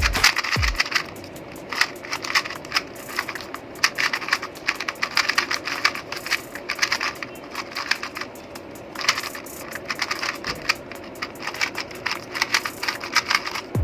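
GAN 251M Pro 2x2 speedcube being turned quickly: runs of fast plastic clicks and clacks, broken by a few short pauses.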